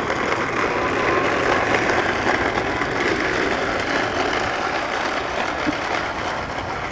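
Battery-powered toy bubble lawn mower running: a steady mechanical whirr of its small motor and gears as it is pushed along, blowing bubbles.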